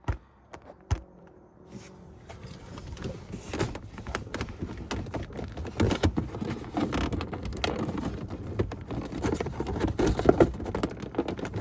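Plastic interior trim being worked loose and pushed into place by hand: a dense run of rustling, scraping, clicks and knocks, starting about two seconds in after a couple of sharp clicks.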